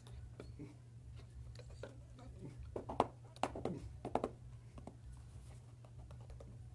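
A few short wordless vocal sounds from a person, between about three and four seconds in, over a steady low hum, with scattered light clicks and taps.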